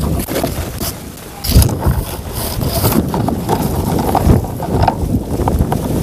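Microphone handling noise and rustling as a camera is pushed up through leafy branches and twigs, with wind buffeting the microphone.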